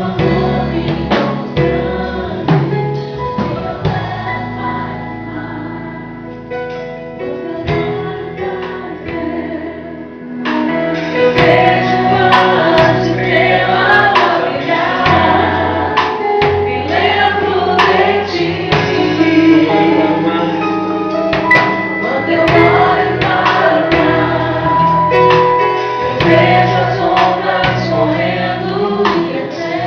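Gospel worship music: a choir of voices singing over a band with percussion. It is softer for about the first ten seconds, then the full band comes in louder.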